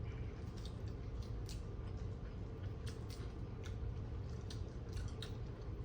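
Chewing and wet mouth sounds of someone eating mussels and shrimp, with scattered small clicks, over a low steady hum.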